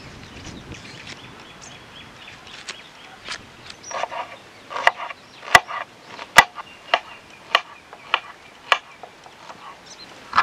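Kitchen knife chopping an onion on a wooden cutting board: sharp knocks of the blade on the board, sparse at first, then a steady run about every half second from about four seconds in.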